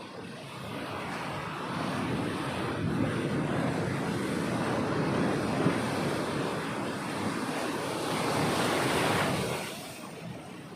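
Sea waves breaking and washing up a beach: the surf noise swells over the first couple of seconds, holds, then dies away near the end.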